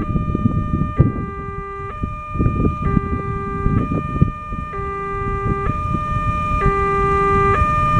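Railway level-crossing warning alarm sounding with the barrier down, the sign that a train is approaching. It repeats a two-tone chime, switching between a higher and a lower note a little under once a second, over a low rumbling noise.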